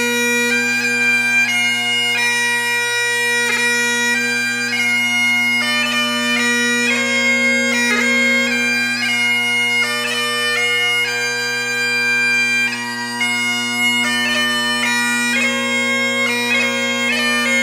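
Background music: bagpipes playing a melody over steady, unbroken drones.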